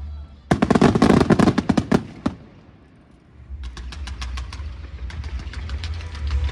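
Fireworks firing in rapid volleys of sharp cracks: a dense crackling burst starting about half a second in and lasting nearly two seconds, a short lull, then another fast run of cracks from the middle on, over a steady low rumble.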